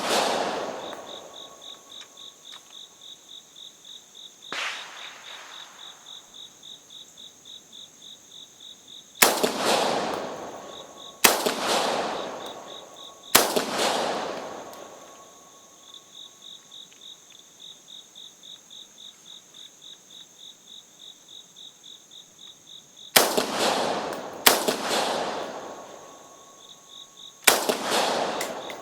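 AK-74 5.45×39 mm rifle fired single shots, seven spaced irregularly, each with an echoing tail; one about five seconds in is clearly weaker, typical of the aged 7N6 surplus rounds that the shooter says are soft loads from powder breaking down. Insects chirp steadily between shots at about two to three pulses a second.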